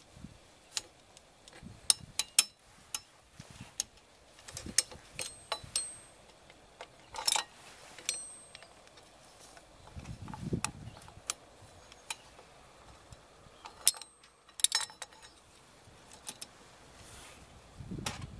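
Steel drum brake shoe, return springs and hardware being handled and fitted against the backing plate: irregular metallic clicks and clinks, a couple ringing briefly, with two duller knocks, about ten seconds in and near the end.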